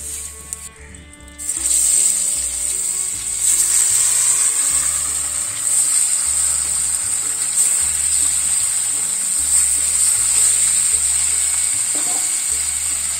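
Fish pieces frying in hot oil in a metal karai: a loud sizzle that starts suddenly about a second and a half in, as the fish goes into the oil, and steps up again about three and a half seconds in.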